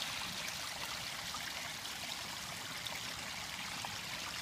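Small backyard rock waterfall running, a steady trickle and splash of falling water.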